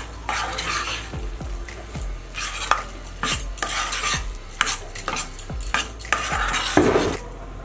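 Steel spatula stirring grated carrot halwa in a kadhai, scraping and knocking against the pan about one or two times a second as powdered sugar is mixed into the cooking carrots.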